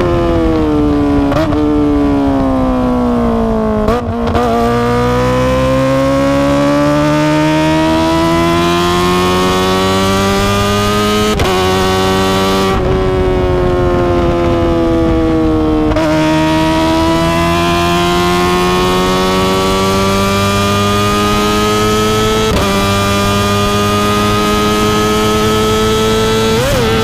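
Kawasaki ZX-25R's high-revving 250 cc inline-four running through an Akrapovic exhaust while riding. Its note falls for about four seconds, then climbs slowly through long gear pulls, breaking briefly at gear changes near the middle and again near the end.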